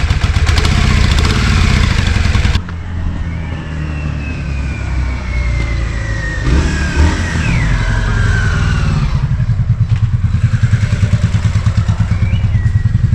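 Yamaha Virago 535 V-twin engine running as the motorcycle is taken for a ride, its note rising and falling, with a steady even beat in the last few seconds. It is running again after a throttle cable adjustment.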